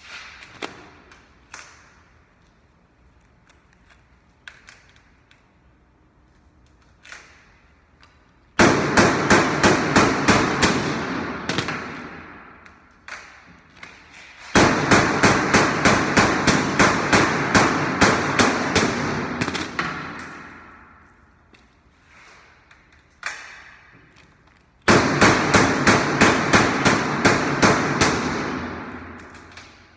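Washing machine knocking hard in three bouts of rapid repeated bangs, about three or four a second. Each bout starts suddenly and fades away over several seconds, with a few faint clicks between bouts.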